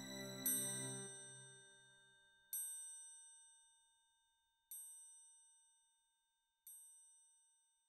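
A bell is struck four times, about two seconds apart, each strike ringing and fading away, while the last of the backing music dies out in the first second or so.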